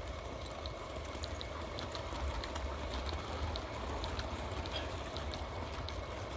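Train of small 16mm-scale model goods wagons rolling past on garden railway track, with light irregular clicks of the wheels over the rail joints over a steady low rumble and hiss.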